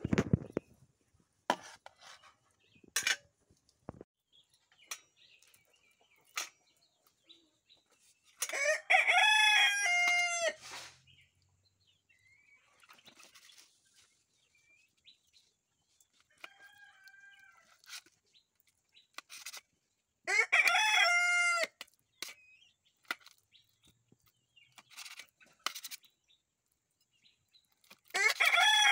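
A rooster crows loudly three times, each crow about two seconds long, with a fainter crow between the first two. Sharp short clicks of a metal spatula cutting and tapping on a steel plate sound between the crows.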